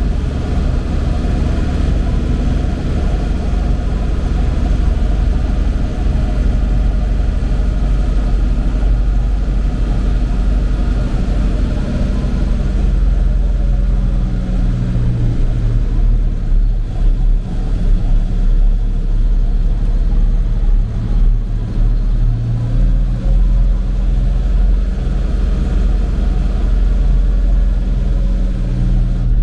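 Tractor engine running steadily while the tractor is driven along, its note shifting about twelve seconds in and again later on.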